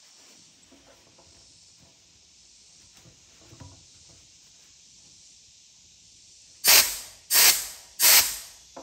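Compressed air hissing from an air hose into a motorcycle fuel tank during a soap-bubble leak test, fading out after about two seconds, with faint rustling as a paper towel wipes the tank. Near the end come three short, loud blasts of air a little over half a second apart.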